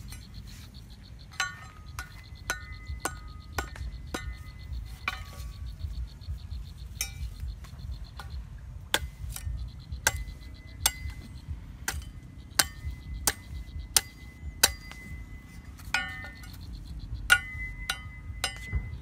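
Machete blade chopping at a green bamboo pole: a long series of sharp, irregular knocks, about one or two a second, many of them leaving a brief metallic ring.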